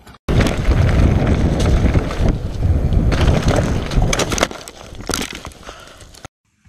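Mountain bike crash heard through a helmet camera: wind and trail noise rush over the microphone with a few hard knocks and crashing as the rider tumbles. The noise dies down near the end, then cuts off.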